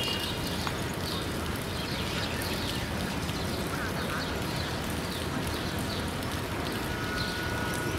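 Passenger train of about twenty coaches rolling past, a steady rumble and rush of wheels on rail, with short high chirps repeating throughout and a brief high tone about seven seconds in.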